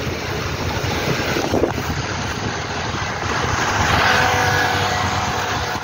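Wind rushing over the microphone of a phone carried on a moving bicycle: a steady rushing noise that swells a little a few seconds in.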